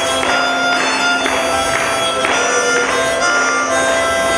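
Background music: a melody of held notes over a steady low drone.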